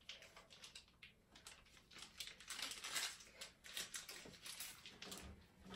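Crinkling and rustling of a plastic icing piping bag being twisted and handled, with small irregular clicks and crackles.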